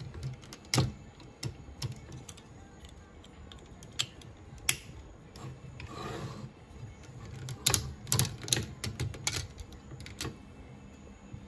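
Hard plastic parts of a DX King-Ohger combining robot toy being handled and fitted together: scattered sharp clicks and snaps, a brief scraping rustle about six seconds in, then a quick run of clicks between about eight and nine and a half seconds in.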